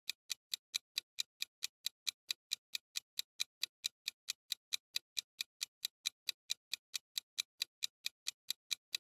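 Countdown timer's clock-tick sound effect: even, sharp ticks at about four a second, counting down the time to answer.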